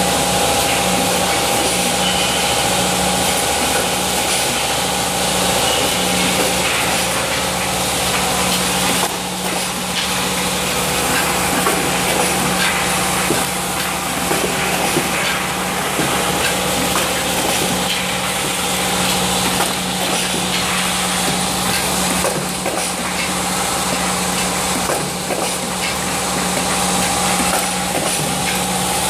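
Automatic plastic-cap assembly machine running: a steady machine hum with a dense, continuous mechanical clatter.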